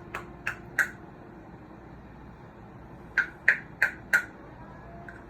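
A spoon knocked against the rim of a mixing bowl to shake off minced garlic: four sharp taps in the first second, then four more about three seconds in.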